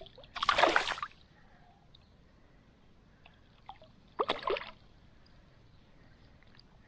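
A hooked Nile tilapia thrashing at the water's surface, making two splashes: one about half a second in and a weaker one about four seconds in.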